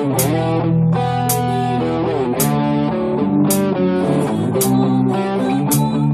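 Instrumental music led by guitar over a bass line, with a short crisp hit about once a second keeping the beat.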